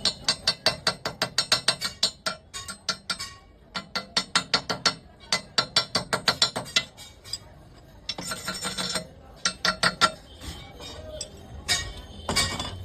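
Quick runs of sharp metallic taps, about five or six a second, each run lasting a second or more with short pauses between runs.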